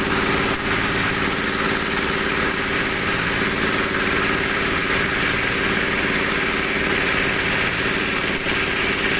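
Dowel machine for turning broom handles running steadily: an even mechanical hum with a steady whir.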